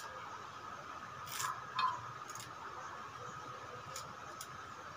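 Moringa (malunggay) leaves being stripped off their stems by hand into a glass bowl: several short rustles and small snaps of stems, the loudest a little under two seconds in, over a faint steady hum.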